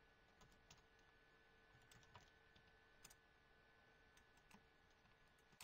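Faint computer keyboard keystrokes: a few scattered, irregular clicks over near-silent room tone with a faint steady hum.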